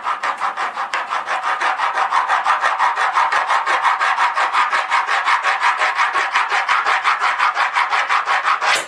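Cake leveler's serrated wire sawing back and forth through a sponge cake in quick rasping strokes, about six a second, stopping abruptly near the end as the layer is cut through.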